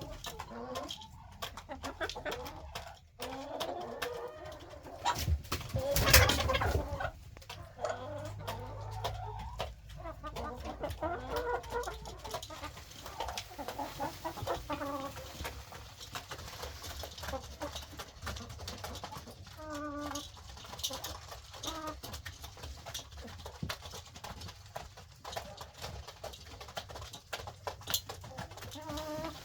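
Chickens clucking on and off, many short calls, with one loud brief noise about six seconds in.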